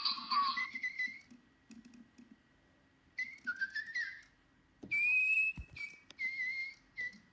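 Little Live Pets Tweet Talking toy bird making electronic whistled chirps: a busy chirping song that stops about half a second in, then several short groups of whistles, some sliding upward, with quiet gaps between.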